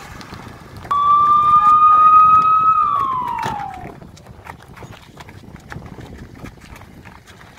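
Police siren sounding a single wail: one loud tone that starts suddenly, rises slightly for about two seconds, then falls away. It is followed by scuffling and running footsteps.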